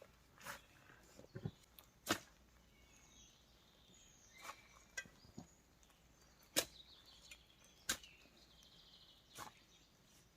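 Scattered sharp taps, about eight of them at irregular intervals, with faint high bird chirps between them.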